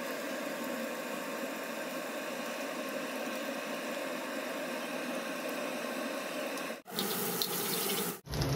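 Water running steadily from a kitchen tap, a continuous even rush with a brief break about seven seconds in.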